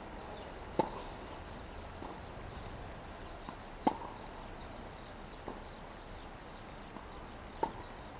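Tennis rally: three sharp racket strikes on the ball, each about three seconds after the last, with fainter hits and bounces in between.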